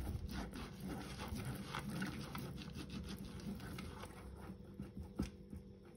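Silicone pastry brush quickly dabbing and rubbing vegetable oil over the inside of a silicone cake pan: soft rapid brushing with light taps, and one sharper click about five seconds in.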